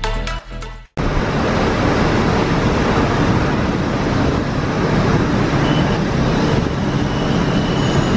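Electronic background music cuts off about a second in. Steady engine and road noise from inside a moving vehicle follows.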